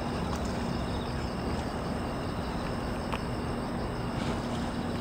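Crickets and other insects chirping steadily at night over a steady low hum and rumble.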